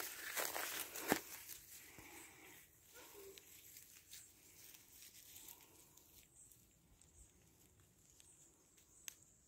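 Faint rustling with a few soft knocks in the first two seconds, then near silence with one small click near the end.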